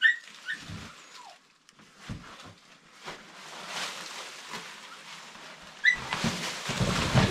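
Footsteps and scrambling over dry leaves and rock, with scattered scrapes and knocks, growing louder and denser from about six seconds in.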